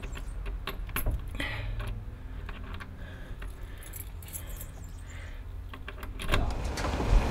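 A bunch of keys jangling and clicking as a key is worked in the lock of a wooden door. About six seconds in, a louder low rumbling noise comes up.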